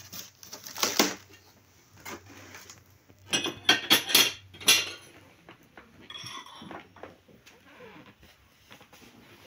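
China plates and tea-set pieces clinking and clattering against each other and the table as they are set down. A cluster of sharp clinks about three to five seconds in is the loudest part, with a few scattered clinks before and fainter rubbing after.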